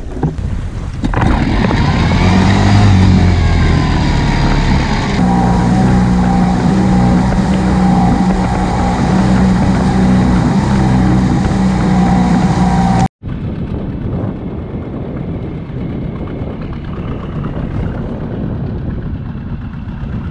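Tohatsu outboard motor on an inflatable boat revving up as the boat gets under way, then running steadily at speed. After a sudden break about 13 seconds in, a quieter, even rush follows without the engine's pitch.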